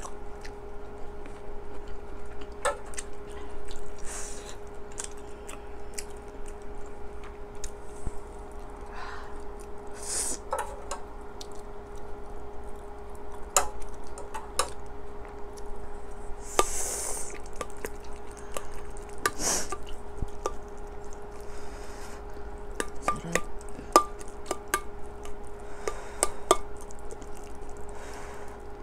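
Mukbang eating sounds: a metal spoon and ladle clinking and scraping against a stainless steel pot and bowl, with several short slurps of stew. A steady low hum runs underneath.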